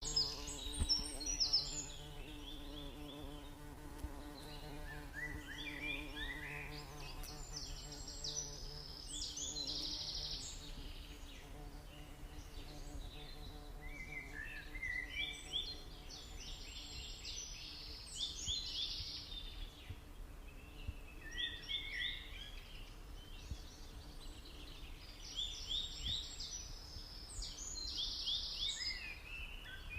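High-pitched chirping in quick trills, coming in short phrases every few seconds, over a steady low hum.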